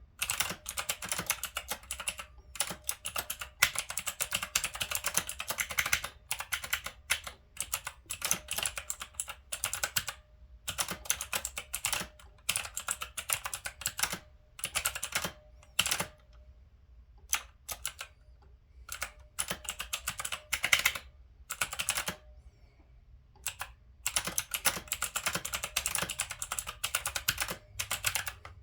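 Typing on an Onn mechanical keyboard: rapid key clicks in bursts of a few seconds, broken by short pauses.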